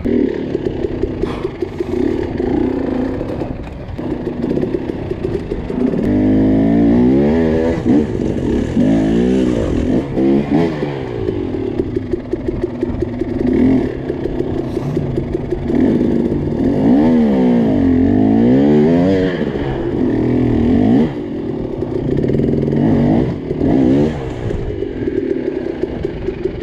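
250 cc enduro dirt bike engine revving up and down in repeated bursts while crawling over rocks, with big rev swings twice, and clattering and scraping against the rock.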